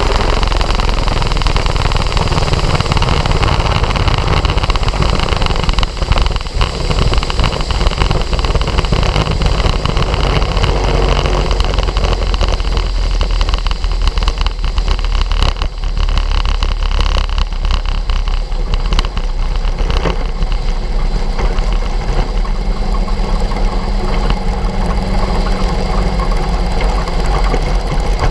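Dragster's engine running steadily at low throttle with a steady rush of wind noise on the onboard microphone, as the car coasts down the shutdown area after its pass.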